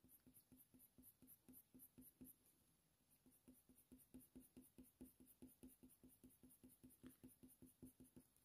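Near silence with faint, quick strokes of a Polychromos colour pencil on hot-press watercolour paper, about four a second, as short fur strokes are laid down.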